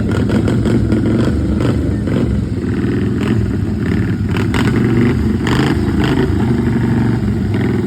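Motorcycle engines running and revving, loud and continuous, with short clattering sounds scattered through.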